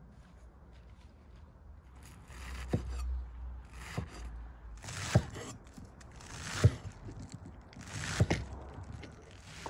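Meat cleaver chopping fresh chives on a round wooden cutting board. Starting about two seconds in, runs of crisp cuts come every second and a half or so, each with a sharp knock of the blade on the board.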